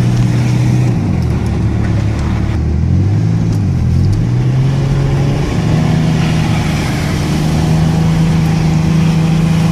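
Ford Ranger's V6 engine running, its revs dropping about a second in, then climbing again between about four and five and a half seconds and holding steady at the higher pitch.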